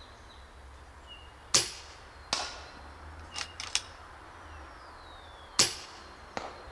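Two shots from an FX Dreamline .30 calibre PCP air rifle in its 5.5 foot-pound German-legal tune, about four seconds apart, each a sharp crack. Under a second after each shot comes a fainter knock of the pellet striking the target about 50 m away, and two light clicks sound between the shots.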